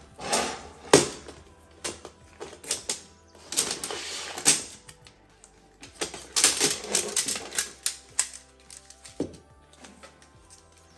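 Masking tape being pulled off its roll in crackling, ripping bursts and wrapped around a bundle of metal stair rods, with light clicks and taps of the rods in between.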